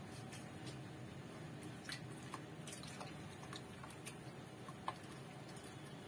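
Faint wet sounds of a hand squeezing and gathering freshly churned butter in buttermilk in a steel pot, with scattered light clicks.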